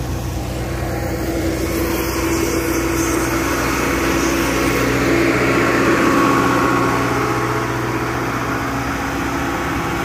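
Engines of road-paving machinery, a road roller and an asphalt paver, running steadily on fresh asphalt, growing louder toward the middle and then easing off.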